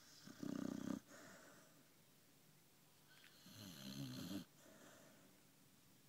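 A sleeping dog snoring: two snores, a short one about half a second in and a longer one about three and a half seconds in.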